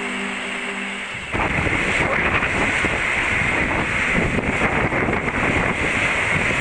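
Background music stops abruptly about a second in, giving way to loud wind buffeting the camcorder microphone over breaking surf.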